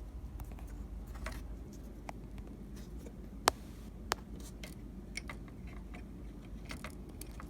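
Small handling clicks and light scrapes, with one sharp click about three and a half seconds in and a smaller one just after four seconds.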